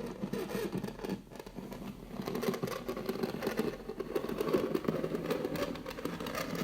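Fingernails scratching over a wall surface in quick, continuous rasping strokes, with a brief pause about a second in.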